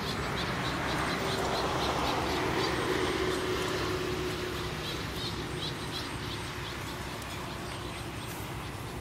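Fishing reel being wound during a lure retrieve, a steady whirring that swells and then eases off after about five seconds. Insects chirp in a fast regular pulse behind it.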